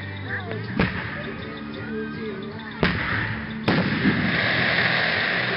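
Aerial firework shells bursting: three sharp bangs, about a second in, near three seconds and just before four seconds, the last followed by a steady hiss.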